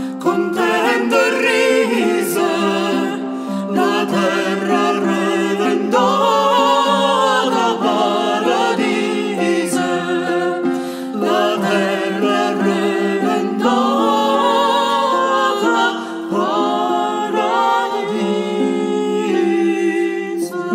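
Several voices singing a Neapolitan Christmas carol in parts, with early-music accompaniment of harp and recorders under steady held lower notes.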